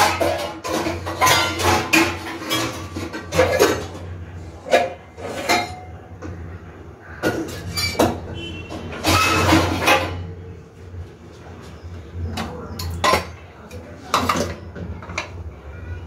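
Kitchen utensils and dishes knocking and clinking in irregular bursts over a low steady hum.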